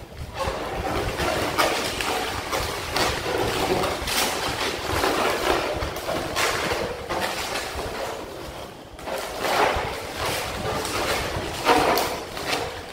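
Latex modelling balloons rubbing against each other and against hands in irregular bursts as they are twisted and fitted together.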